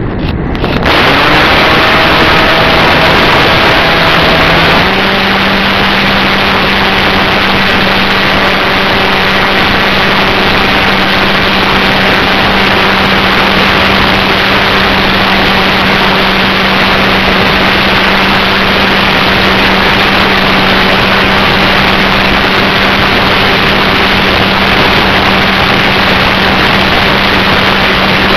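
Radio-controlled flying wing's motor and propeller heard on board in flight: a steady hum under loud rushing wind noise on the microphone. The hum steps up slightly in pitch about five seconds in.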